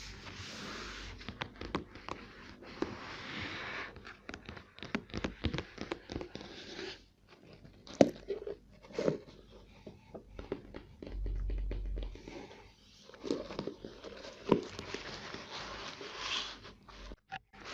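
Close-miked eating: biting and chewing with irregular crunches, crinkles and mouth clicks, in quick uneven bursts. A brief low hum comes in a little past the middle.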